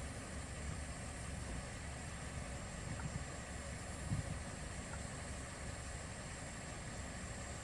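Steady low rumble of an idling vehicle engine, with two brief low thuds about three and four seconds in.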